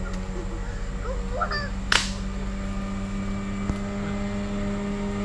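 A steady hum at several fixed pitches runs throughout, like a distant engine. Over it come a short wavering call about a second in and a single sharp swish or crack about two seconds in.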